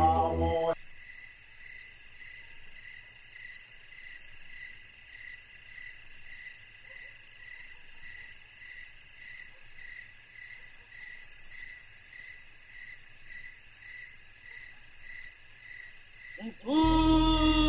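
Crickets chirping steadily in an even, pulsing rhythm of about two pulses a second. Music with a voice cuts off under a second in, and louder music with a voice starts abruptly near the end.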